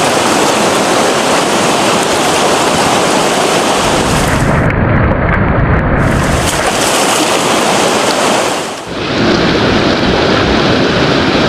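Loud, steady rush of fast-flowing river water, dipping briefly about nine seconds in.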